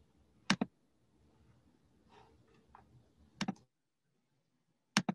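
Sharp computer clicks in quick pairs, like double-clicks, three times over a faint room tone.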